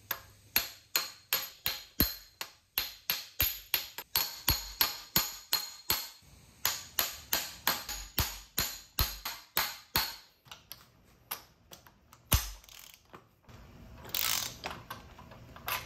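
Steady hammer taps on a steel driver tube, about three a second, each with a short metallic ring, driving a helical transfer gear down onto its shaft in a Graziano L140 transmission. The taps stop about ten seconds in and are followed by a few scattered clicks. Near the end a ratchet wrench clicks briefly as the gear's nut is turned.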